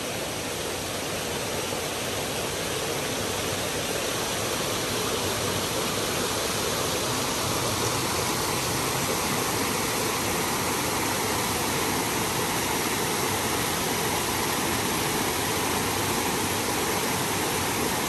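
Amruthadhara waterfall: water pouring over rock in a steady rush, the falls running at low flow.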